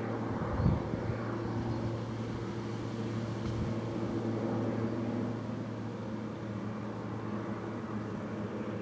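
Cessna 208B Grand Caravan's single turboprop engine and propeller droning steadily as it approaches to land, a low even hum. A brief low thump comes under a second in.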